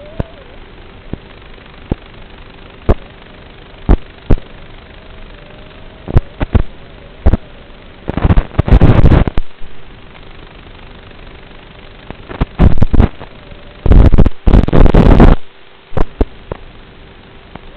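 FPV quadcopter heard through its onboard camera's microphone: a steady motor hum with a faint wavering whine, broken by sharp cracks and two dense crackling bursts of about a second and a half each, one near the middle and one about two-thirds of the way through.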